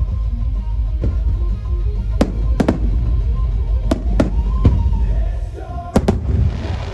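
Aerial firework shells bursting in a string of sharp bangs, several in quick pairs, over a steady low rumble, with a rising hiss near the end.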